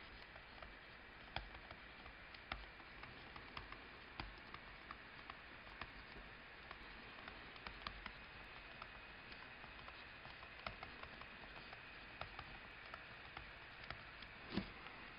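Faint, irregular ticks and light scratches of a stylus on a tablet surface as words are handwritten, a few per second over faint room hiss.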